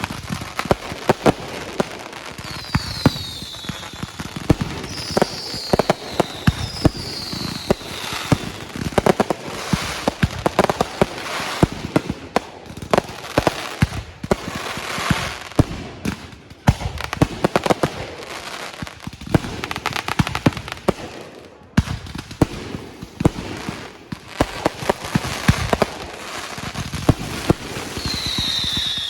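Fireworks display: a dense run of sharp bangs and crackling pops, with a few short falling whistles in the first third and again near the end.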